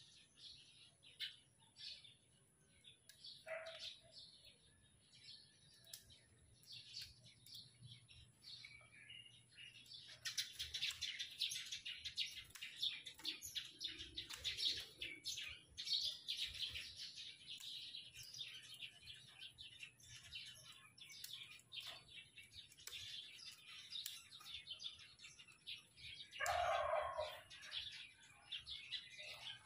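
Small birds chirping and twittering, thickest in the middle of the stretch, with scattered sharp clicks from pruning shears snipping twigs. Near the end a louder, lower sound lasts about a second.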